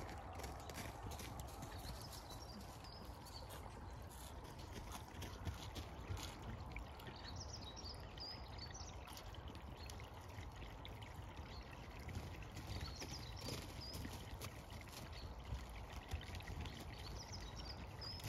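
Zwartbles ewes drinking from a puddle, with many soft clicks and slurps, while small birds chirp briefly every few seconds.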